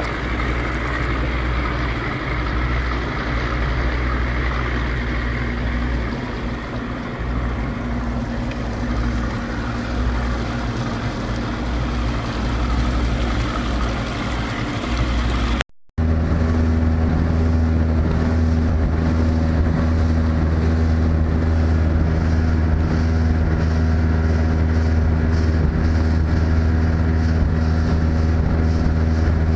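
Motorboat engine running steadily underway, a continuous low hum over a rushing noise. The sound drops out for a moment a little past halfway, then the engine hum carries on steadier.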